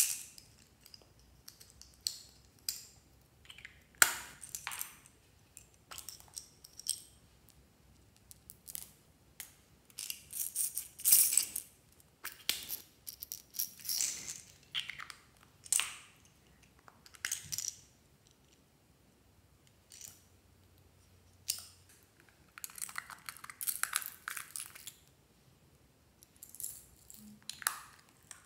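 Hard plastic toy capsules being handled and popped open, with small plastic beads rattling and clicking as they are tipped out. It comes as a series of separate sharp clicks and short rattles with pauses between them, busiest about ten to twelve seconds in.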